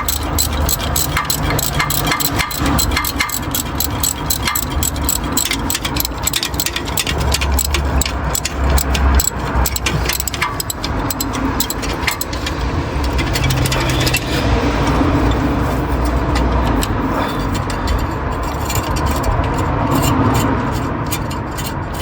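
Ratchet wrench clicking rapidly with rattling and scraping of the socket and extension, as spark plugs are turned out of the engine by hand.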